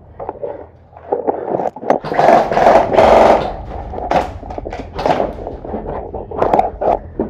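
Airsoft gunfire. A run of rapid shots about two seconds in is the loudest part and lasts about a second and a half, among scattered sharp clicks and knocks.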